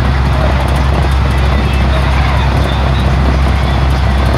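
Bus engine running steadily with road noise as the bus drives, heard from inside the cabin as a constant low drone.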